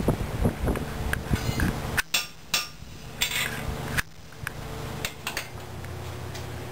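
Sharp metallic clinks and taps of a farrier's hand tools, a handful of separate, unevenly spaced strikes.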